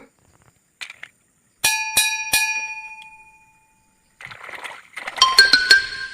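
Three quick, identical chime-like notes struck about a third of a second apart, ringing and fading away over about two seconds. Near the end a soft whoosh is followed by a flurry of bright chiming tones.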